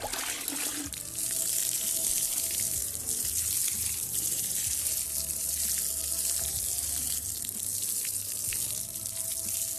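Water pouring steadily from a bucket to water chili plants: a continuous rushing splash that starts about a second in.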